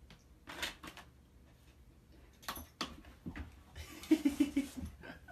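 Plastic pet-door flap knocking and clattering as a dog pushes through it, several separate knocks, with a short run of quick pulses about four seconds in.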